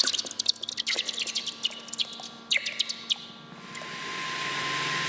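Molten aluminium poured from a refractory test brick into a bucket of water: rapid sharp crackling and popping as the metal hits the water and quenches, giving way to a steady sizzling hiss from about three and a half seconds in.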